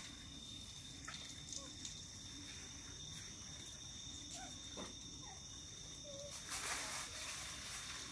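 Outdoor tropical ambience: a steady high-pitched insect drone, with a few brief faint squeaks or chirps in the middle and a short burst of rustling about six and a half seconds in.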